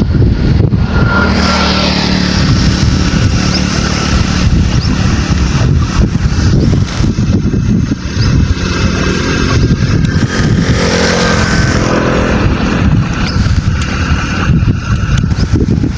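Motor vehicle engine running steadily on the move, with wind buffeting the microphone.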